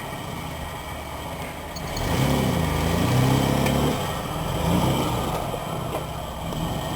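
Nissan D21 Hardbody's 3.0-litre V6 engine running at low speed while crawling over rocks, revving up about two seconds in and easing back down, with a smaller rise in revs a little later.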